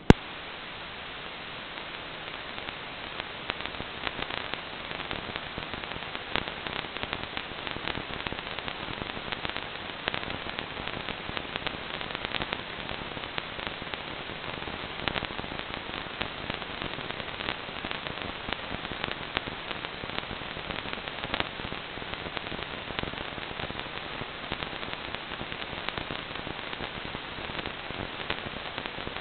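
Analog FPV video receiver static: a click, then steady loud hiss with scattered crackles, the sound of the receiver picking up no signal after the drone's video link has dropped out.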